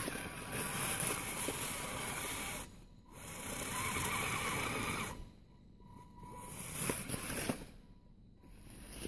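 Scale RC crawler (Axial SCX10) driving over packed snow: electric motor and gear drive whirring, with tyres crunching snow. It comes in stretches of one to two seconds with short pauses between, as the throttle is worked on the climb.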